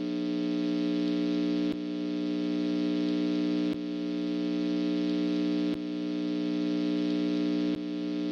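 Steady low synthesizer drone: a held chord of several tones that restarts about every two seconds with a short dip, like a looped ambient pad.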